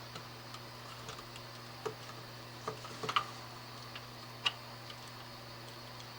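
Stripping the insulation off an electrical wire: a few faint, irregular clicks and snips from a hand tool working on the wire, the sharpest about three seconds in, over a steady low hum.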